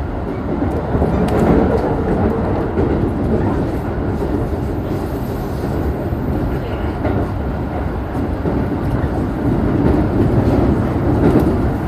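Running noise inside a Keikyu New 1000 series electric train car: a steady rumble of wheels on rail that swells and eases, with faint clicks.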